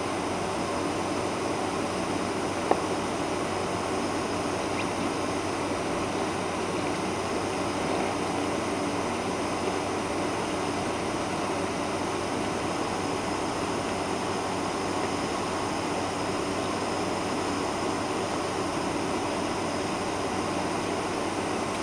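Boeing 747-400 taxiing, heard from inside the passenger cabin: the steady noise of the jet engines at taxi power mixed with cabin air, with faint steady whine tones. A single sharp click about three seconds in.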